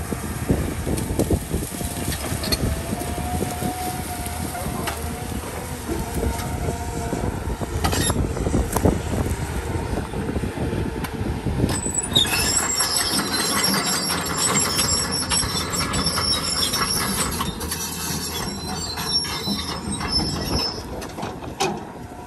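Caterpillar 320 crawler excavator working: its diesel engine running under load with clanks and crunches as it tears into brush, then a high metallic squealing from about twelve seconds in until near the end.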